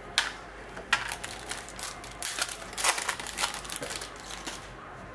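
Trading cards being handled: card stock rustling, sliding and clicking. A couple of sharp ticks come early, then a denser patch of rustling and crinkling a little past the middle.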